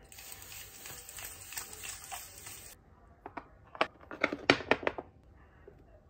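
Small skincare bottles and tubes knocked and set down on a hard countertop: a cluster of sharp clicks and taps between about three and five seconds in. Before that there is a soft hiss with light handling rustle that stops suddenly.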